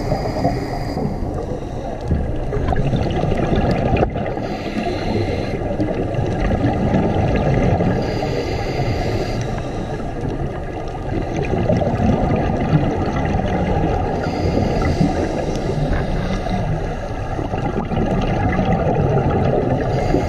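Scuba diver breathing through a regulator underwater: a short hiss of inhaled air every few seconds over a steady low bubbling rumble of exhaled air and water against the camera housing.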